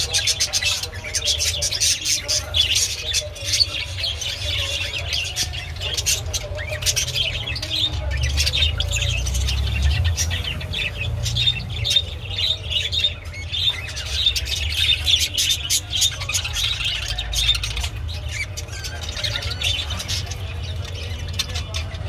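Budgerigar warbling and chattering without pause: a fast jumble of chirps, clicks and scratchy squawks, over a low rumble.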